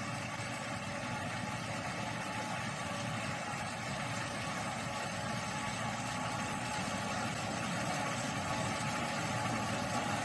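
A 4YZ-4T corn harvester running: a steady engine and machinery noise that grows slightly louder toward the end.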